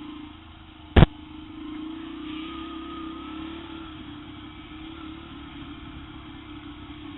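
Yamaha TT-R125 trail bike's small four-stroke single-cylinder engine running steadily while being ridden along a dirt trail, with one sharp, loud knock about a second in.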